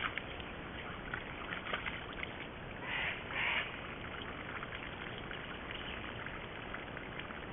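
Sambar stag heaving itself up out of a muddy wallow, with wet splashing and sucking of mud and water. About three seconds in come two short rustling bursts as it pushes its head and antlers up into overhanging vegetation.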